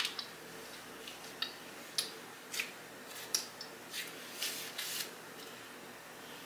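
Eating sounds from seasoned chicken wings: short, sharp, wet clicks and crackles from chewing and from sticky fingers working the meat, about ten in the first five seconds, the loudest right at the start.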